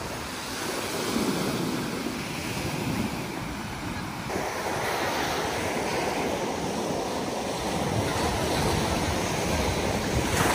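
Sea waves breaking and washing up onto a sandy beach: a steady rush of surf that becomes fuller about four seconds in.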